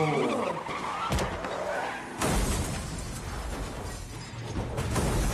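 Action sound effects from a film soundtrack: a wavering screech at the start, then sudden hard crashing hits about a second and two seconds in, with another loud surge near the end.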